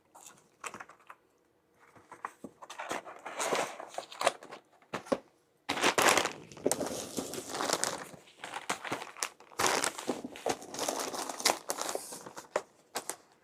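Crinkling and rustling of packaging from a meal-delivery box as it is handled, in irregular spells with small knocks.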